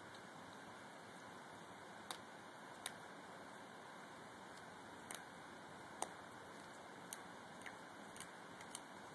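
Cat chewing a mouse: about eight short, sharp crunching clicks at irregular intervals over a faint steady hiss.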